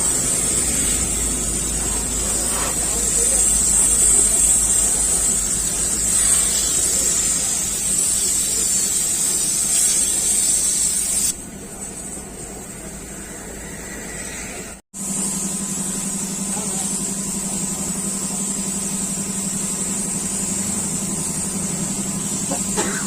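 Mahindra MM540 jeep's engine running with a low, pulsing rumble and a steady hiss. The sound changes abruptly about eleven seconds in, and after a short break near fifteen seconds a steadier low hum continues.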